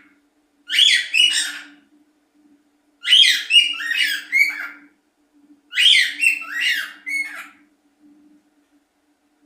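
A bird singing three short phrases of quick, falling notes, each phrase a second or two long with pauses between.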